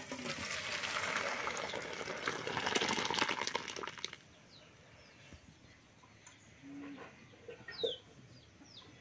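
Hot cooked masoor dal poured from a pot into a stainless steel bowl: a splashing pour lasting about four seconds that stops abruptly. After it, a chicken clucks and small birds chirp now and then.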